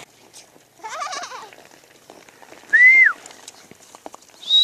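A quavering bleat about a second in, then a short, loud, high cry that rises and falls near three seconds, and a high wavering whistle-like call starting near the end.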